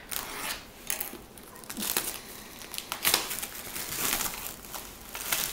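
Crinkling and crackling of card-box packaging being handled and opened, with many small irregular clicks.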